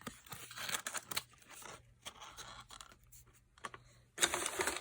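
Packaging being handled: irregular rustling, crinkling and scraping with a few clicks, and a louder burst of rustling near the end.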